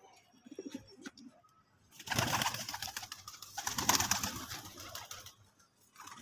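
Fantail pigeons cooing softly, broken about two seconds in by a loud flurry of rapid wing flaps that lasts about three seconds.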